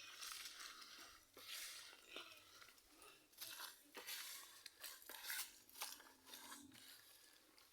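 Faint, irregular rustling and crunching of chopped elephant grass and rice bran being mixed together by hand.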